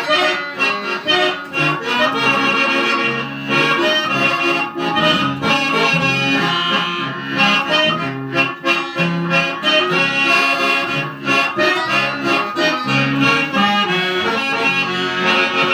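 Accordion playing an instrumental passage of a folk tune, with steady chords and a rhythmic bass line.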